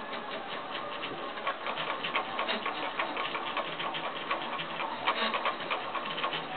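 Homebuilt AF1 3D printer printing: its stepper-driven axes make rapid, irregular ticking and clicking as the print head moves, getting denser and louder about a second and a half in.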